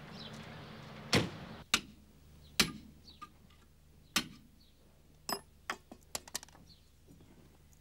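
Car doors of a large sedan thudding shut, twice, a little over half a second apart, then scattered sharp knocks and a quick run of clicks.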